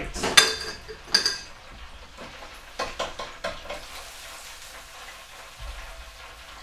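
Two sharp metallic clinks about a second apart near the start, then a few lighter clicks and rattles as metal tongs and the fryer basket are handled at a countertop electric deep fryer, with the hot oil sizzling softly under the frying chicken katsu cutlet.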